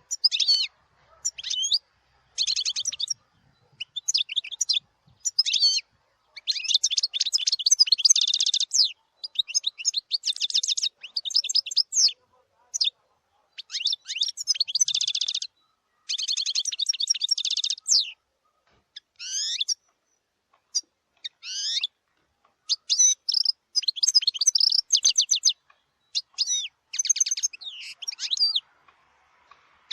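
European goldfinch singing: long, fast twittering phrases of trills and buzzy notes, with a few quick rising whistles, broken by short pauses.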